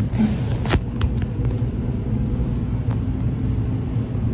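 A few light clicks and taps in the first second and a half over a steady low rumble, as a phone is handled and set in place for filming.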